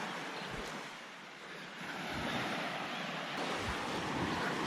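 Sea waves washing onto a sandy beach: a steady rushing that dips about a second in and swells again.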